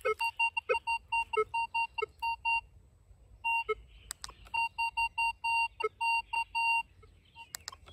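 Minelab Vanquish 540 metal detector beeping on a target: a run of short, same-pitched high beeps, about four a second, with a few lower beeps mixed in and a pause of about a second in the middle. It is a decent, repeatable target signal.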